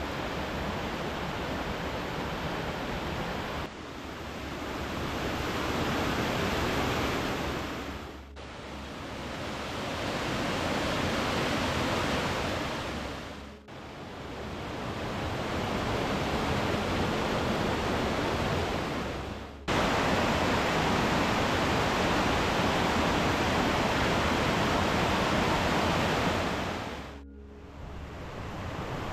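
Rushing white water of a small waterfall cascading down a rocky mountain beck, a steady hiss and splash. Its loudness jumps up or down abruptly a few times, quietest near the end.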